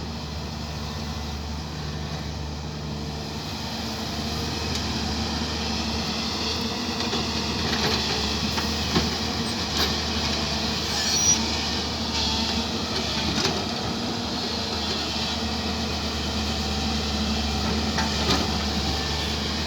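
Heavy diesel engine of an earthmoving machine, an excavator or backhoe loader, running steadily under work. Several sharp metallic clanks and knocks come through it in the second half.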